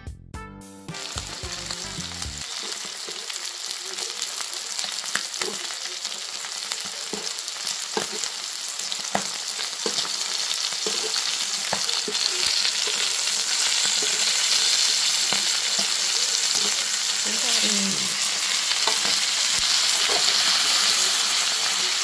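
Pork belly, mushrooms and fiddlehead ferns sizzling on a hot grill pan: a steady frying hiss with scattered pops and clicks, growing louder over the first several seconds.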